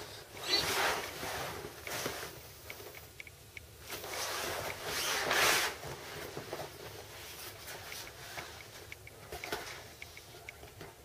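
Inflated vinyl swim tube, turtle-shaped, rubbing as someone shifts in it. There are two longer spells of rubbing, about half a second in and about four seconds in, with light clicks and knocks between them.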